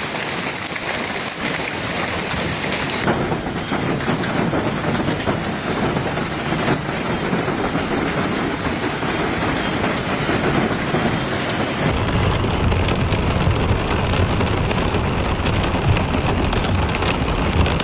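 Heavy rain in a thunderstorm, a loud steady hiss. The sound changes abruptly about 3 seconds and 12 seconds in, and in the last part a deeper rumble runs under the rain.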